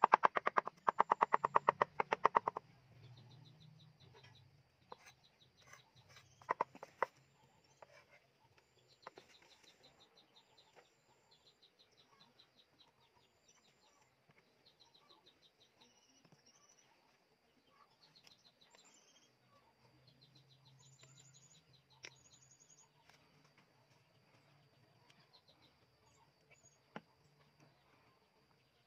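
A cleaver chopping fast on a round wooden chopping board, many quick strokes that stop about two and a half seconds in. After that, small birds chirp in quick repeated runs, with a few knocks around seven seconds in.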